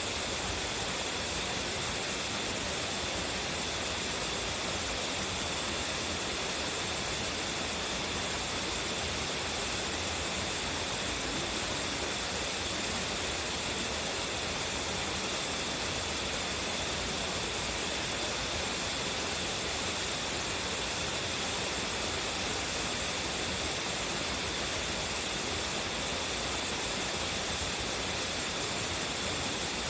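Waterfall with a strong flow crashing steadily into its pool: a dense, unchanging rush of water.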